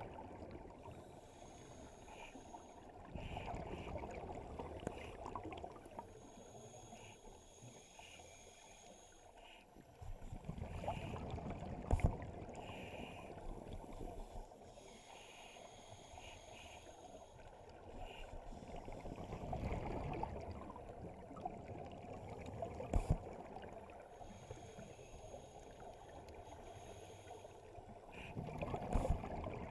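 Scuba diver breathing through a regulator underwater: a thin high hiss on each inhale, then a louder rush of exhaled bubbles, repeating about every eight to nine seconds. Two sharp knocks come about midway and again later.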